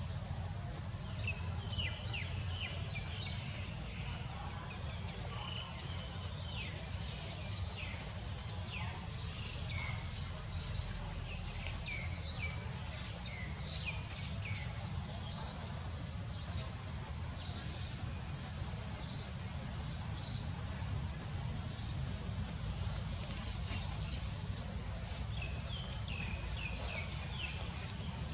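Woodland ambience: a steady high insect drone over a low rumble, with many short, high chirps scattered through it, thickest and loudest in the middle.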